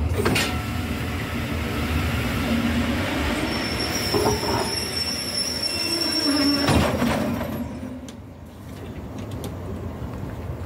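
West Coast Railways passenger coaches rolling past close by, their wheels rumbling and clattering on the rails. A thin, steady, high-pitched wheel squeal runs through the middle. Two brief louder rushes come near the start and about two-thirds through, and the rolling sound eases off near the end.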